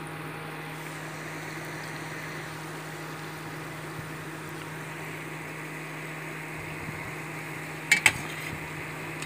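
Gulab jamun balls deep-frying in hot refined oil in a steel pan: a steady sizzle and bubbling of the oil, with a low steady hum beneath it. Two sharp clicks come about eight seconds in.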